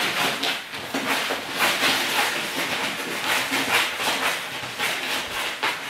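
Golden Retriever puppies digging and scratching in a corner, rustling through scattered litter and shreds: a continuous run of rough scratching strokes, a few a second.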